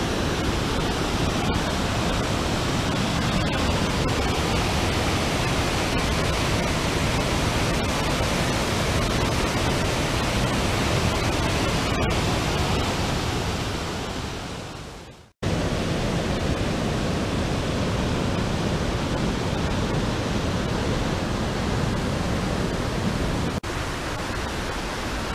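Waterfall and stream rushing below a footbridge: a steady, even noise of falling white water. It fades out about 15 seconds in, and a similar steady rushing noise comes back after a short gap.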